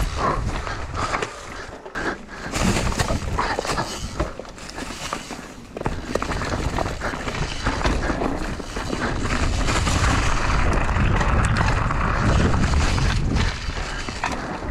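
Enduro mountain bike descending a steep, rocky forest trail covered in dry leaves: tyres crunching over leaves and stones, the bike rattling and knocking over rocks, with wind buffeting the microphone. The noise eases off a little near the end as the bike slows.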